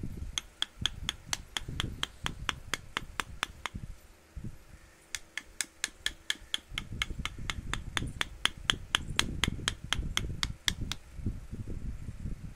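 Hammer tapping a carving chisel into wood, in quick even strikes about four a second with a sharp ringing click. The tapping stops for about a second and a half near the middle, then starts again.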